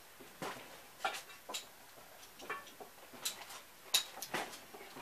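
Scattered light clicks and taps at an uneven pace, a few a second, with the sharpest one about four seconds in.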